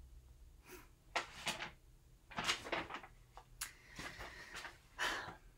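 Sheets of paper rustling and being shuffled in the hands, in several short bursts.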